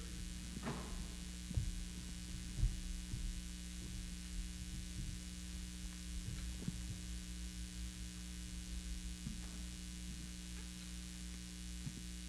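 Steady electrical mains hum, with scattered soft knocks and thumps of a handheld microphone being picked up and handled; the loudest knocks come about one and a half and two and a half seconds in.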